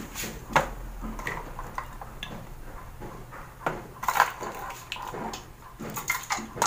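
Scattered clinks and knocks of small bowls and utensils being handled on a kitchen counter, with a few sharper clicks about half a second in, around four seconds in and near the end.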